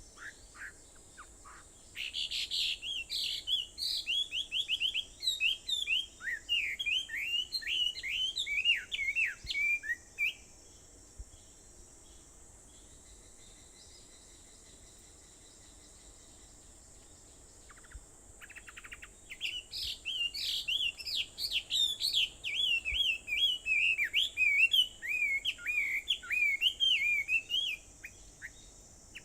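A wild songbird singing two long songs of rapid, varied chirping notes, each lasting about eight seconds, with a pause of about nine seconds between them. A faint steady high hiss runs underneath.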